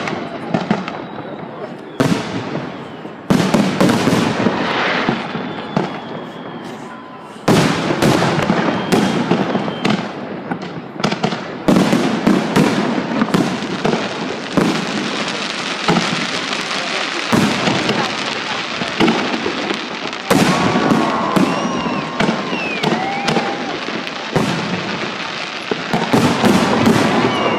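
Fireworks salute: aerial shells exploding with sharp bangs every few seconds and crackling between them, with voices of the watching crowd.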